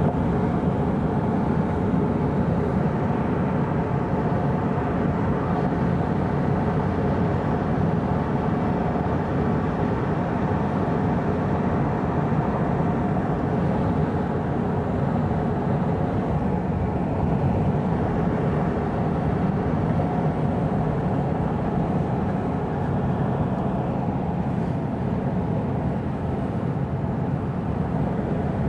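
Steady, unbroken vehicle rumble, even in level throughout, with no distinct events.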